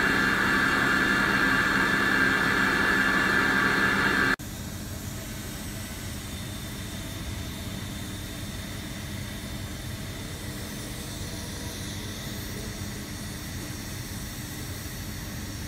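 Soraluce FL5000 CNC milling machine's spindle head running with a loud steady whine of several held tones for about four seconds. It cuts off abruptly, and a quieter steady machine hum follows while the universal milling head swivels to a new angle.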